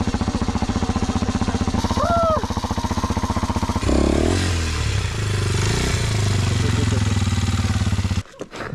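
Motorcycle engine running at low speed on a gravel track, its even firing pulses giving way about four seconds in to a steadier, lower note. Near the end the engine sound drops away abruptly, leaving a few light clicks. A brief rising-and-falling chirp comes about two seconds in.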